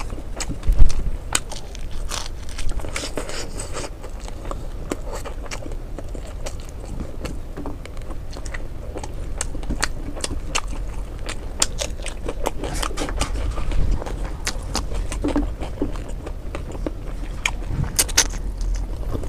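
Close-up eating sounds: fingers mixing rice and picking at fried fish on a steel plate, with chewing and mouth sounds, heard as a steady run of small sharp clicks, crackles and scrapes.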